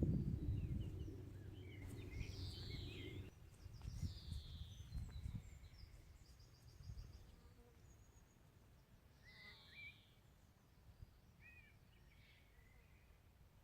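Wild birds calling outdoors: scattered short whistled notes that slide down in pitch, a few chirps and a brief rapid trill. A low rumble sits underneath for the first three seconds or so, then stops.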